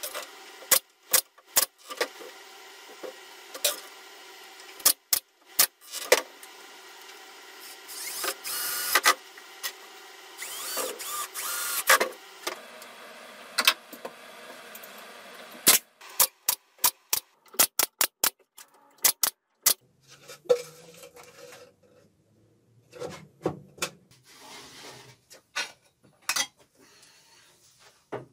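Pneumatic brad nailer firing brads into pine pallet wood: many sharp single shots, some spaced out and some in quick runs. A few seconds of hissing noise come near the middle.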